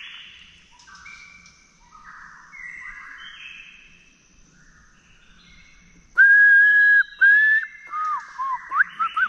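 A man whistling bird-like calls. Fainter, varied whistles come first, then a loud held whistle about six seconds in, followed by quick rising and falling whistles near the end.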